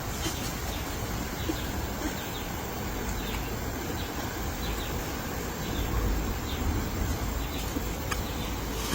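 Outdoor ambience with a low rumble and scattered short, faint bird chirps.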